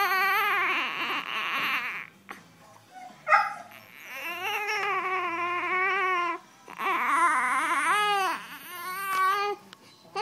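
One-month-old baby crying: a run of long, pitched wails, each a second or two, separated by short pauses.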